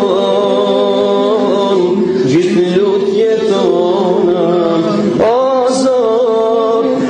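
A man singing unaccompanied into a handheld microphone: long held notes that waver and turn in small ornaments. He breaks off and comes back in with a swoop up about five seconds in.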